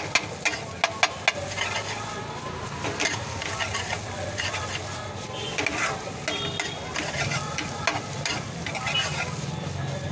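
Egg bhurji sizzling in a shallow black metal pan while a flat metal spatula stirs and scrapes it, with sharp clinks of spatula on pan, several close together in the first second or so and more scattered throughout.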